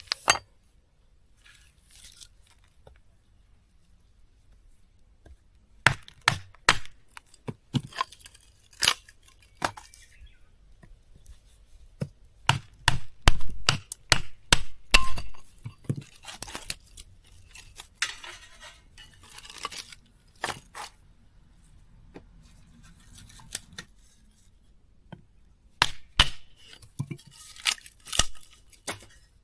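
Irregular clinks, taps and knocks of hard objects being handled, coming in clusters with short quiet stretches between.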